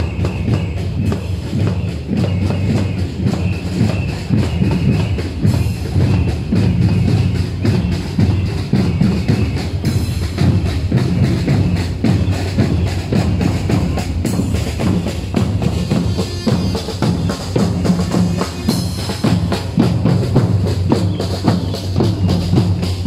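Marching drums, bass drums among them, beating steadily.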